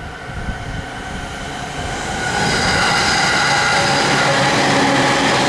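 An electric passenger train approaching on the rails, getting louder from about two seconds in, then running steadily with rail noise and a steady motor whine.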